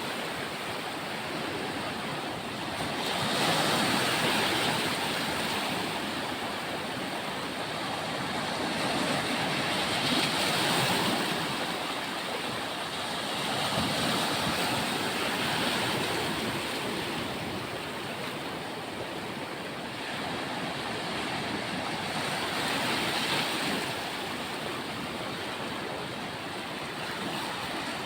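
Sea waves breaking on a beach, the surf swelling and falling back every few seconds.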